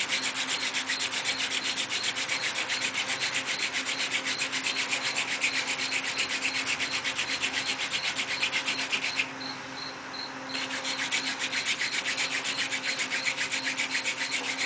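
Hand-drill friction fire: a fireweed-stalk spindle is spun back and forth between the palms, grinding into a pine hearth board in a steady rhythmic rubbing of about five strokes a second. It eases off for about a second past the middle, then picks up again. The notch is filling with dust as an ember is worked up.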